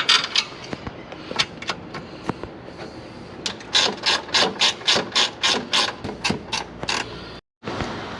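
Hand ratchet clicking as it tightens a hose clamp on the intake coupling: a few scattered clicks, then a run of about four quick clicks a second. The sound cuts out briefly near the end.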